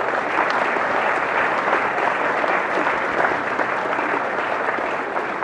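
A large crowd of standing students applauding steadily, easing off a little near the end.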